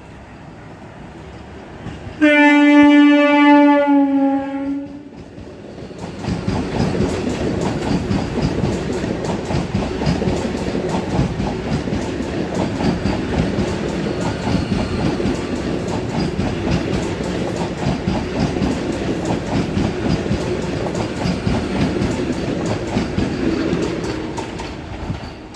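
Electric multiple unit train sounds its horn once, a single steady tone for about two and a half seconds. From about six seconds in, it runs past close by: a loud rush with rapid wheel clatter over rail joints.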